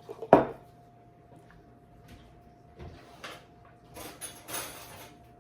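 Kitchen handling sounds: one sharp knock about a third of a second in, a few light clicks, then about a second of scraping and rustling near the end, over a faint steady hum.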